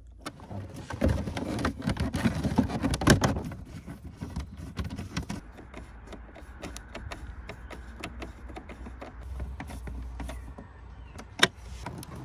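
Rustling, knocking and clicking of hands working wiring connectors and plastic trim behind an Audi's glove box, busiest in the first few seconds, with a couple of sharp plastic clicks near the end.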